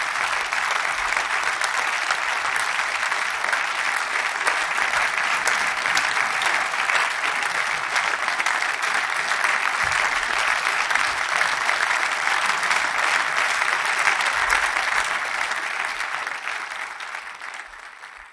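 Theatre audience applauding: dense, steady clapping from a large crowd at a curtain call, fading away near the end.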